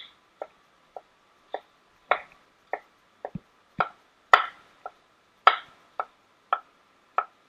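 Kitchen knife cutting carrot on a cutting board: a steady series of sharp knocks, about two a second, each stroke landing on the board.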